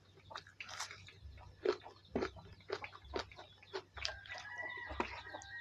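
Close-up eating sounds: irregular wet chewing clicks and crunches, food bitten and chewed right at the microphone. About four seconds in, a steady held tone sounds in the background under the chewing until the end.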